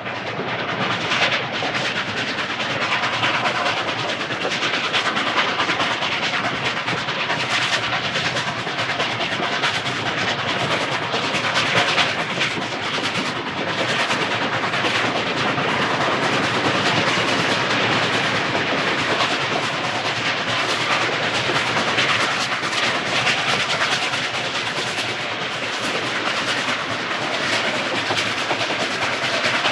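Moving train: a steady noise of wheels running on the rails, with many small irregular clicks and knocks and an even loudness throughout.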